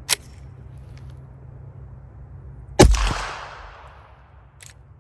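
A single suppressed 9mm shot from a Glock 43 pistol fitted with a shortened Rugged Obsidian 9 suppressor, firing supersonic ammunition, a little past halfway through. It is a sharp report with a hissing tail that fades over about a second. A light click comes near the start.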